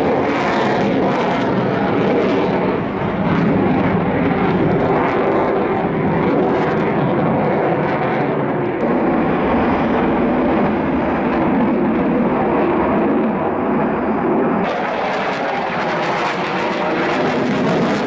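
Fighter jet engine noise: a loud, steady rushing roar. About fifteen seconds in, it abruptly turns brighter and more hissing.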